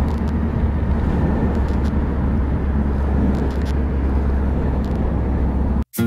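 Motorcycle cruising on the road: a steady low engine rumble under wind rush on the microphone, which cuts off suddenly just before the end.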